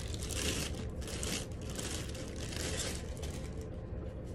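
Packaging wrap rustling and crinkling in irregular bursts as a portable DVD player screen is unwrapped and handled, over a steady low hum.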